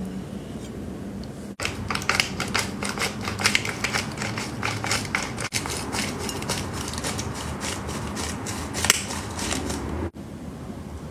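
Salt and pepper mills twisted over sliced steak: rapid dry crunching clicks as the seasoning is ground out, in two runs split by a cut, stopping abruptly about ten seconds in.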